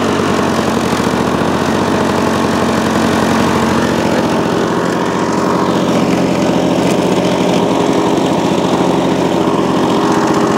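A 1978 Lawn-Boy R7268 self-propelled mower's two-stroke engine running at a steady speed.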